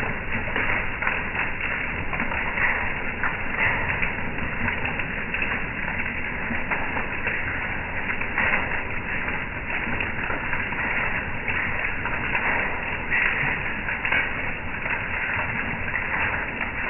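Hail and heavy rain hitting a wooden deck and a metal-mesh patio table: a dense, steady clatter of countless small rapid ticks over a rushing hiss.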